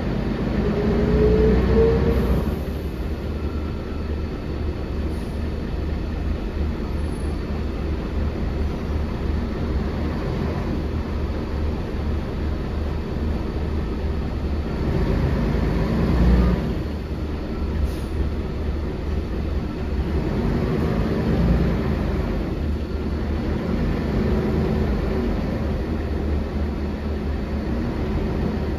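Ride noise inside a 1999 Volvo B10L bus under way: the engine and drivetrain run steadily under the cabin's rattle and road rumble. In the first two seconds the engine note climbs as the bus accelerates, then drops away.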